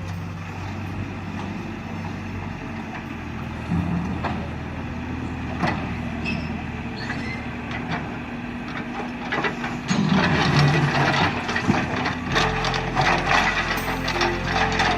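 A heavy vehicle's engine running steadily, with scattered knocks and cracks of wood, turning into a denser, louder clatter about ten seconds in.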